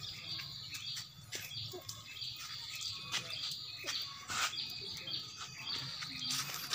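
Small birds chirping in the background, short high chirps repeating about twice a second, with scattered light clicks and rustles.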